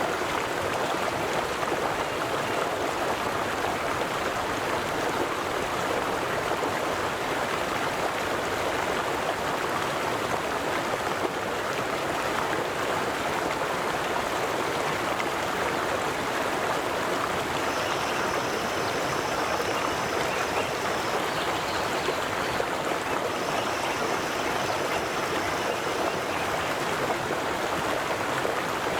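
River water flowing over stones, a steady, even rushing and babbling. Twice in the second half a faint, thin high tone sounds for about three seconds over the water.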